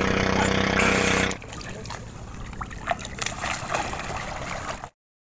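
A steady engine hum that stops abruptly a little over a second in, followed by quiet splashing and trickling water from a swimmer moving beside a boat.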